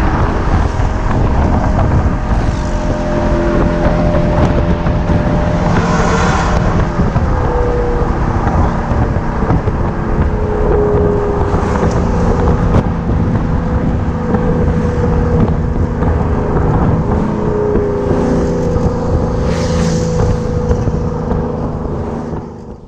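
Maserati Levante diesel SUV driving, heard at its rear bumper: steady wind and road noise over the exhaust note, which a Maxhaust active sound system shapes into a V8-like rumble through speakers in the exhaust. The sound fades out at the very end.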